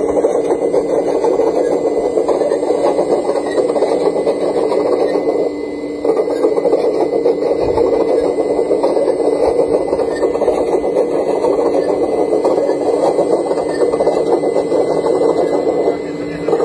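Radio-controlled Liebherr R970 SME model hydraulic excavator running while it digs: a steady mechanical hum with one held tone, its pump and drive working under load. The hum drops briefly about five and a half seconds in and again near the end.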